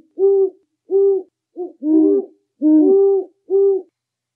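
Owl hooting: a quick series of about seven short hoots, some overlapping at two slightly different pitches.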